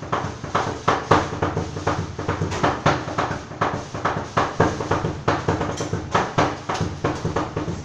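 Cleavers chopping sisig on a wooden chopping board in a fast, steady rhythm of several sharp knocks a second, with some strokes accented louder than others like a drum beat.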